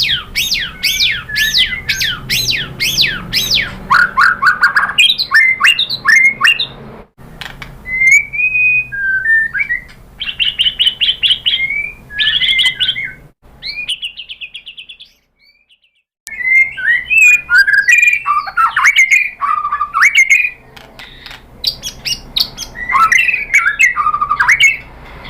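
White-rumped shama singing a loud, varied song: it opens with a fast run of repeated sweeping whistles, then moves to chattering and whistled phrases, with a short break about fifteen seconds in.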